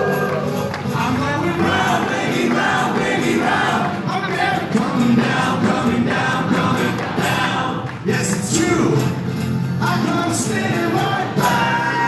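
Rock band playing a song live in an acoustic set: guitars with male singing, several voices singing together.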